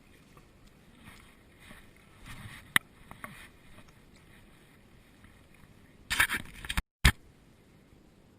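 Quiet water sloshing during magnet fishing, with a sharp knock about three seconds in and a short splashy burst about six seconds in, followed by a sudden cut-out and a click.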